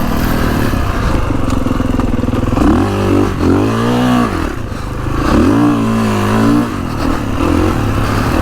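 Kawasaki KX450X's single-cylinder four-stroke engine running as the bike is ridden, holding steady revs for the first couple of seconds, then rising and falling in pitch several times as the throttle is opened and rolled off.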